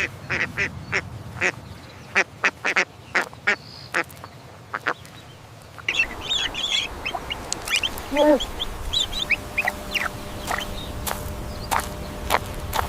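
Drake (male duck) quacking in a series of short calls. About six seconds in the sound switches to a different recording of higher-pitched bird calls.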